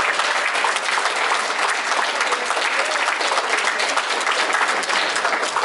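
Audience applauding: many hands clapping steadily together.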